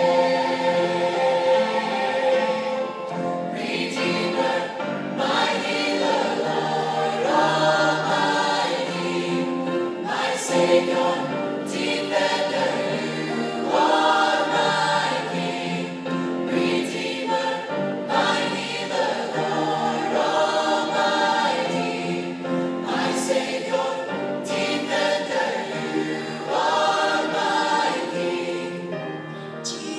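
Mixed choir singing a gospel-style worship song, many voices together holding and moving between sustained chords.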